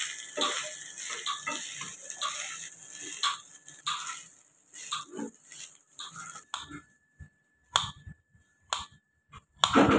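Wooden spatula stirring and tossing par-boiled basmati rice as it fries in ghee in a non-stick pan: a steady sizzle with quick scrapes against the pan. About six and a half seconds in this gives way to a knife slicing a carrot on a board, about four sharp chops roughly a second apart.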